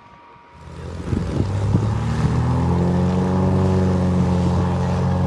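Single-engine light plane's propeller engine running as a steady drone, swelling in over the first two seconds and then holding.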